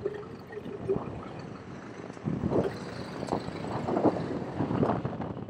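A garbage truck driving past close by, its engine rumble swelling from a little over two seconds in and loudest in the second half, over a steady rattle.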